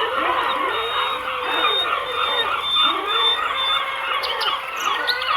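Dense chorus of many wild animals calling at once, with overlapping repeated chirps and calls.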